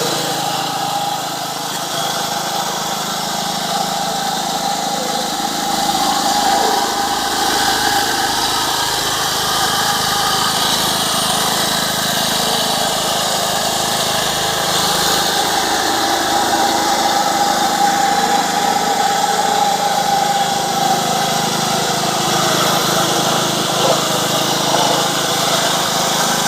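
Small engine of a plate vibrator running steadily while compacting fresh cement concrete, a continuous engine hum with a steady whine over it.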